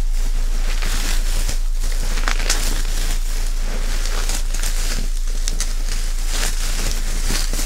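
Plastic bubble wrap crinkling and crackling as hands pull it open and handle it, with many small sharp crackles.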